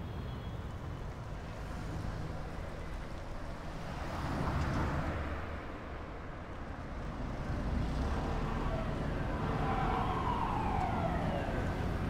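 An emergency-vehicle siren wailing over a low rumble, with a long slow fall in pitch near the end.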